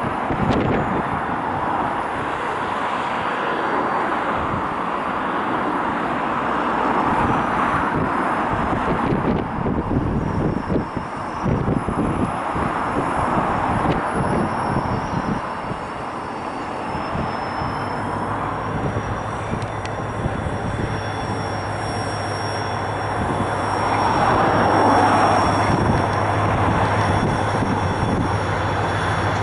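Irish Rail 071 Class diesel-electric locomotive's EMD V12 engine working as it hauls a laden ore train, getting louder as it approaches. A steady low drone comes in about two-thirds of the way through and is strongest near the end as the locomotive draws close.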